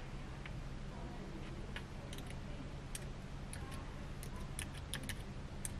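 A few scattered, irregular clicks of computer keys over a low steady hum.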